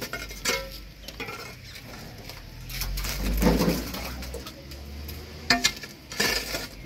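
Steel hoe chopping into soil, tree roots and broken concrete, several sharp metal-on-stone strikes and clinks. About three and a half seconds in, a longer, louder noise as a mat of tree roots is torn out of the drain.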